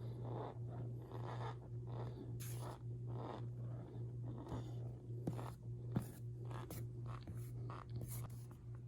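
Fingers squeezing and rubbing powder, making soft squeaky crunches in repeated strokes about two a second, with two sharper clicks a little past the middle. A steady low hum runs underneath.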